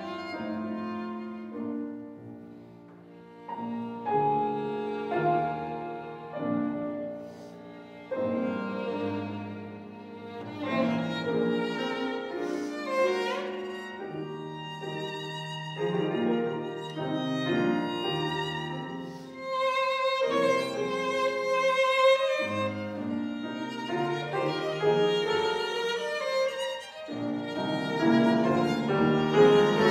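Violin and piano duo playing classical music: the violin carries sustained, shifting melodic lines over piano accompaniment, rising and falling in loudness.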